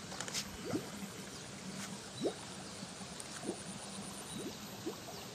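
Water gurgling and trickling in a shallow irrigation channel, with small bubbly plops that rise in pitch, coming irregularly every half second or so.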